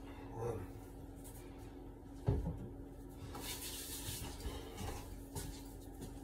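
Kitchen handling noises: one sharp knock a little over two seconds in, then soft rubbing and rustling and a few small clicks, over a steady low hum.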